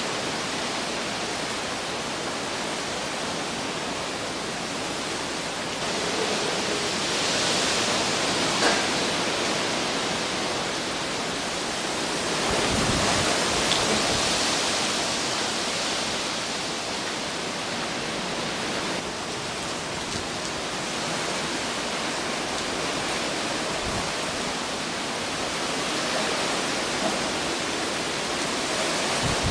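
Hurricane wind and rain as a steady rush of noise. Gusts swell it about six to nine seconds in and again around twelve to sixteen seconds.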